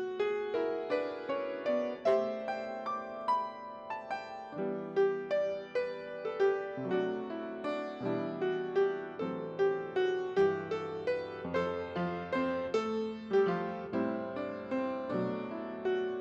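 Solo piano playing, with single notes and chords struck a few times a second, each fading after it is struck.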